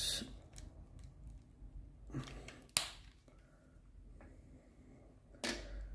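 Faint handling of a Lego brick car model in the hand: a few light plastic clicks and taps with soft rustling, the sharpest click just under three seconds in.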